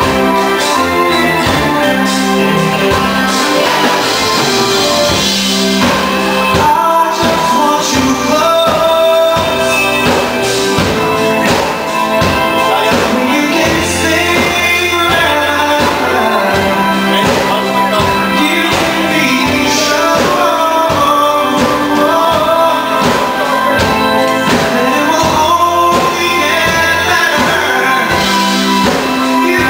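Live band playing a reggae mash-up: a male lead voice singing over keyboards, bass guitar, electric guitar, drum kit and hand percussion.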